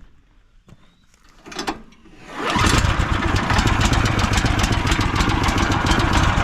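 Woodland Mills HM126 portable sawmill's small engine being started: a few light clicks, a short crank about a second and a half in, then it catches about two seconds in and runs steadily while warming up.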